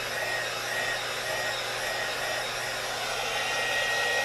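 Heat gun blowing hot air in a steady whoosh with a thin high whine, passed over a wet coat of epoxy on a tumbler to pop the air bubbles.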